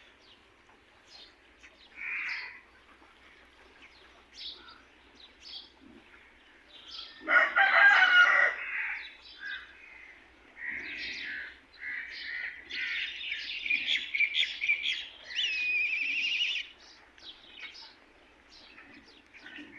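A rooster crows once about seven seconds in; this is the loudest sound. Small birds chirp on and off around it, most busily in the second half.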